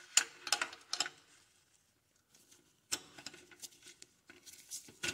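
Ratchet clicking on a long socket extension and swivel as it turns a 15 mm nut off the catalytic-converter-to-exhaust-manifold stud of a GM 3.6L V6. The clicking comes in two short spells with a pause of about two seconds between them. The nut is backing down the stud rather than the stud spinning with it.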